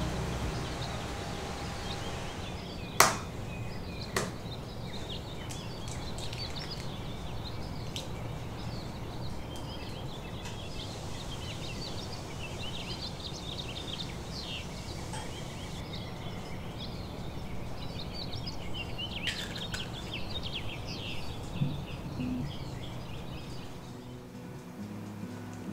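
Quiet room ambience with a steady hiss and birds chirping in the background, broken by two sharp knocks about three and four seconds in.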